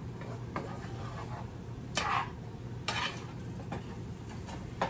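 Wooden spoon stirring chopped onions and peppers in a frying pan: about five knocks and scrapes of the spoon against the pan, the loudest about two seconds in, over a low sizzle as the vegetables cook down.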